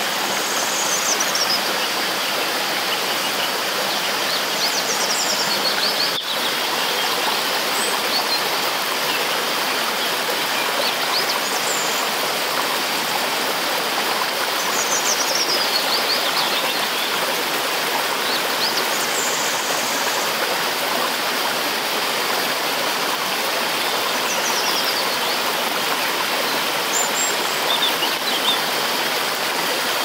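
Shallow rocky stream rushing steadily over stones and small rapids. A bird calls faintly in the background, short falling chirps repeated every few seconds.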